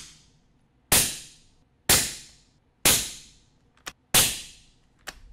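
Suppressed rifle firing subsonic 300 Blackout 200-grain rounds through an AB Suppressor Raptor 7.62 four-stack on a 3-inch reflex mount. Four shots land about a second apart, each a sharp crack with a short fading tail, and the tail of a fifth shot rings out at the start. The shots measure roughly 122 to 124 dB peak at mid-gun, and a few light clicks fall between and after them.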